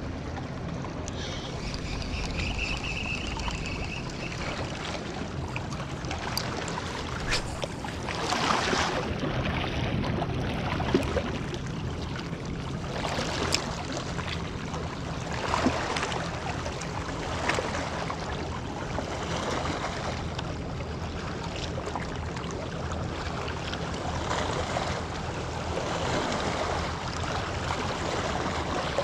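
Small waves lapping and splashing against a rocky lake shore, with wind on the microphone and a steady low hum underneath. There are a few light clicks here and there.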